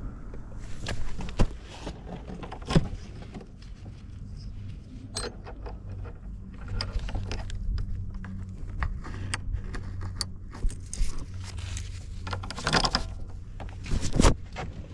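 Suzuki Let's II scooter's small two-stroke engine idling with a steady low hum, with a scatter of sharp clicks, knocks and jangling rattles over it.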